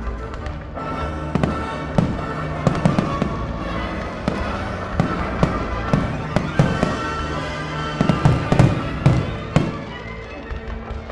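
Fireworks bursting in a rapid, irregular string of sharp bangs over music, the bangs thickest in the second half and stopping near the end.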